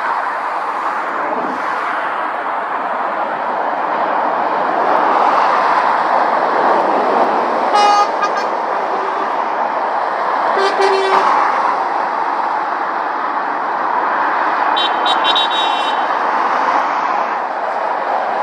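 Motorway traffic, lorries and cars passing with a steady tyre-and-engine roar that swells as each goes by. Brief horn toots sound about eight seconds in, about eleven seconds in, and again near the end.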